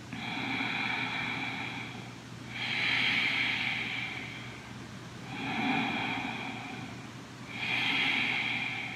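A man breathing slowly and audibly, four long breath sounds of about two seconds each with short pauses between them.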